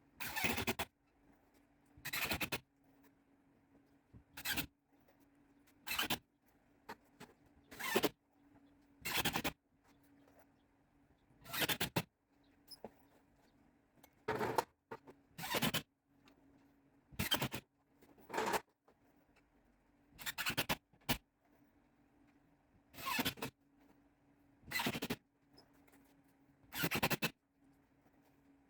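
Repeated short scraping strokes, about one every one and a half to two seconds, each lasting about half a second, over a faint steady hum.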